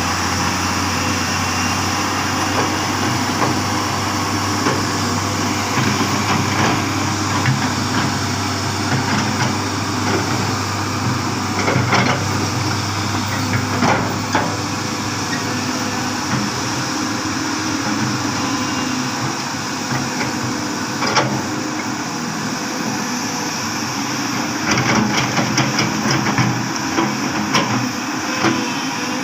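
Excavator engine running steadily at work, with scattered sharp knocks and clanks of metal and rock, a quick cluster of them near the end.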